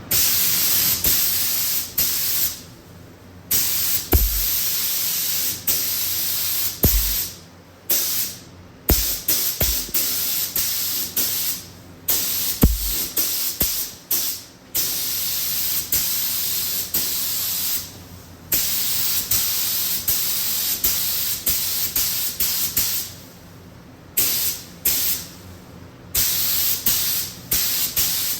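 Spectrum spray gun spraying primer: a loud hiss of atomising air in repeated bursts of one to a few seconds as the trigger is pulled and released, each cutting off sharply. A few brief low thumps fall between the passes.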